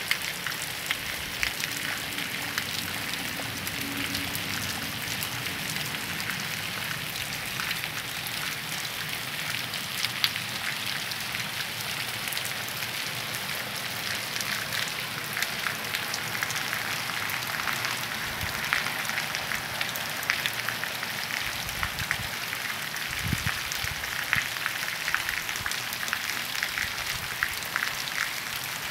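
Steady light rain falling on a wet paved street, a constant hiss of rainfall with many close drops ticking.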